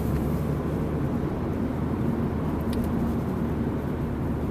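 Steady engine and road noise heard from inside a Honda Civic's cabin while it is driven, with a faint click about halfway through.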